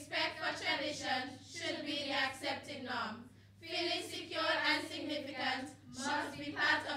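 A group of schoolgirls singing together without accompaniment, in short phrases with brief breaks between them.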